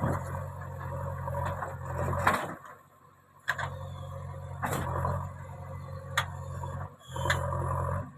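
JCB 3DX backhoe loader's diesel engine running steadily, with several sharp metallic knocks as it works. The sound drops away almost to silence for about a second, around three seconds in.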